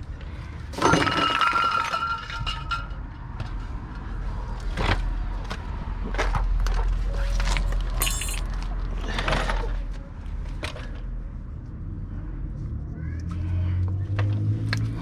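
Metal tools and brake parts clinking and knocking during a rear brake job, with one loud metallic clang about a second in that rings briefly. A low engine hum builds near the end.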